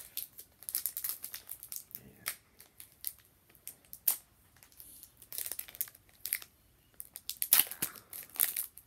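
Shiny plastic wrapper of a Pokémon card booster pack crinkling as it is handled and torn open by hand, in quick irregular crackles, with the loudest burst of crinkling and tearing near the end.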